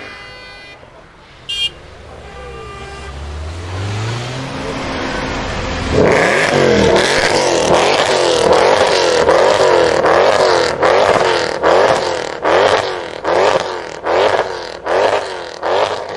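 The 6.2-litre V8 of a Mercedes C63 AMG revving hard. It builds up and holds loud from about six seconds in, then is blipped in a string of sharp revs about once a second near the end.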